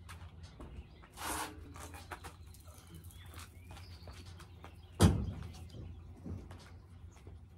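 A heavy rubber truck tire dropped onto a pickup's tailgate, landing with a loud thud about five seconds in and a smaller knock just after. Before it comes a brief scuff as the tire is lifted off a stack, with faint birdsong behind.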